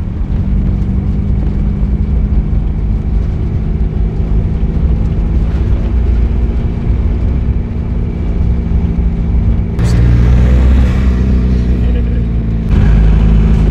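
A van's engine drones steadily as it drives, heard from inside the cab over tyre and road rumble. The sound shifts abruptly about ten seconds in and again near the end, turning louder and deeper each time.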